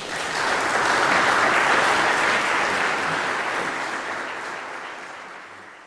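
Audience applauding at the end of a chamber music performance. The clapping swells quickly, holds for a couple of seconds, then slowly dies away.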